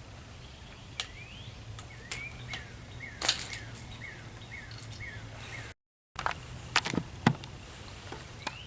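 A songbird calling in a run of short, repeated chirps, each note sweeping in pitch, with a few light clicks and knocks scattered through. The sound drops out completely for a moment about six seconds in.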